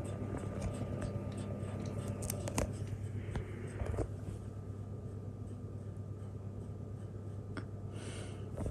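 Quiet room tone: a steady low hum with a few soft clicks and light rustling.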